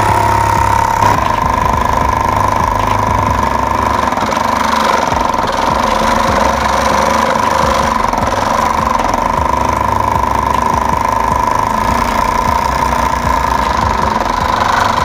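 Homemade scroll saw driven by a 775 DC motor running steadily, its reciprocating blade cutting through a PVC wiring-channel strip. A steady whine over a rapid chatter.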